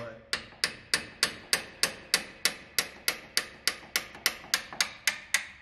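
A hammer striking a solid steel wrench in a steady rhythm of about three ringing metal-on-metal blows a second, used as a home-made impact to break loose the large mounting nuts of a semi-truck's air brake chamber.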